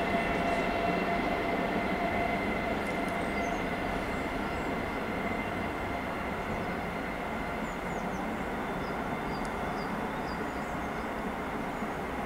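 Distant train hauled by steam locomotive 5519, rolling along the line with a steady rumble and a faint high ring, slowly fading as it moves away.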